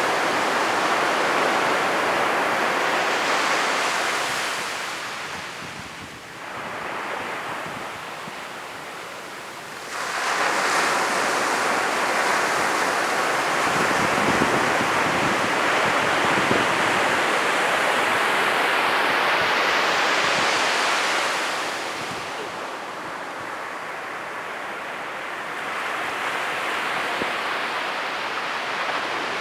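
Ocean surf breaking on a beach: a steady wash of crashing waves that fades for a few seconds, surges back with a fresh breaker about ten seconds in, and eases again a little after twenty seconds.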